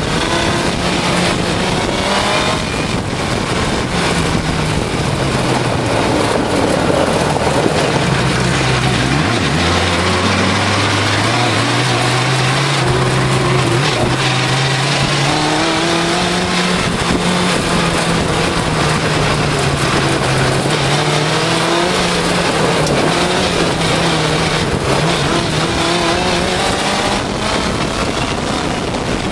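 Suzuki GSX-R600 motorcycle engine, an inline-four, driving an off-road buggy, its pitch rising and falling again and again as it accelerates and eases off, with a dip about nine seconds in.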